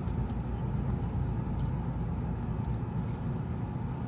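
Steady low background rumble, with a few faint light clicks as a replacement phone screen is pressed into its frame to test the fit.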